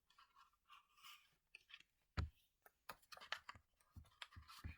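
Cardboard and small packaging being handled as an advent calendar door is opened: soft scattered clicks and crinkles, with a dull knock about two seconds in and another near the end.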